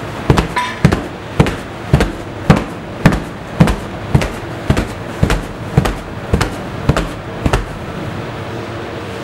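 A steady run of sharp knocks, about two a second, that stops a little before the end, over a low steady hum.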